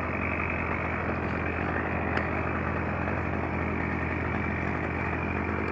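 An engine running steadily at idle, with a short click about two seconds in.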